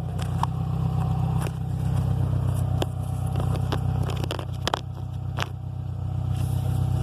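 Subaru STI's turbocharged flat-four running steadily at idle, with scattered sharp clicks and light scrapes over it.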